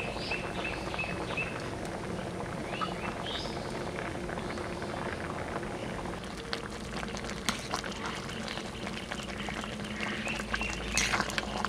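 Rice and wild mushrooms boiling in a wide metal pan, bubbling and popping steadily. Near the end a ladle stirs through the thick rice and knocks against the pan.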